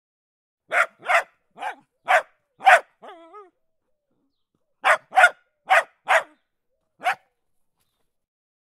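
A dog barking: a run of five short barks, a brief wavering whine, then after a pause another run of five barks.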